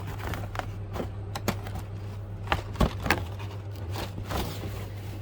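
Cardboard shoe box and its packing being opened and handled: a run of light scrapes, rustles and clicks, with three sharper knocks about two and a half to three seconds in, over a steady low hum.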